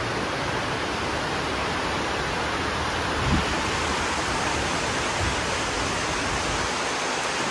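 A steady, even rushing noise, with a short low bump about three seconds in.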